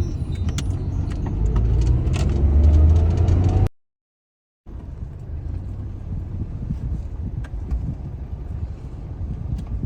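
Motor vehicle engine running with a low rumble, rising in pitch as if accelerating. It cuts off abruptly to silence a little under four seconds in, then resumes as steady rumbling with scattered clicks and rattles.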